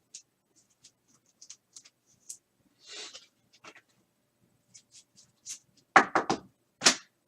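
Trading cards being handled by hand: small rustles and clicks of card stock and plastic, with a short rustle about three seconds in and two louder sharp scrapes or taps about six and seven seconds in.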